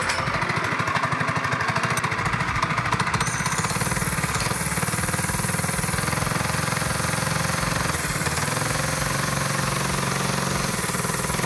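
Predator single-cylinder small engine on a drift trike, running with an open exhaust pipe at a rapid, even firing beat.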